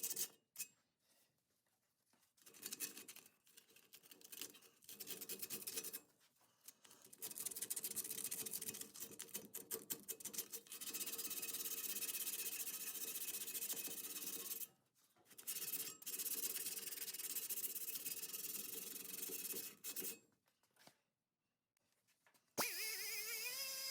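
Sanding on rusty sheet metal, in spells of scratchy strokes broken by short pauses. Near the end a buzzing whine starts suddenly.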